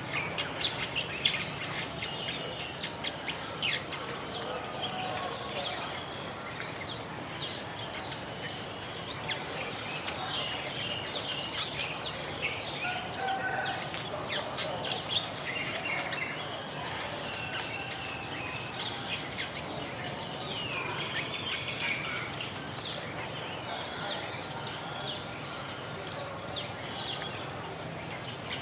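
Many small birds chirping and calling at once, short quick notes overlapping densely, over a steady outdoor background hiss with a constant high-pitched tone running under it.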